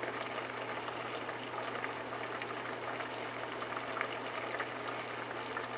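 A pot of rice in water with cinnamon sticks bubbling steadily, with many small pops: the rice has started to cook. A faint low hum runs underneath.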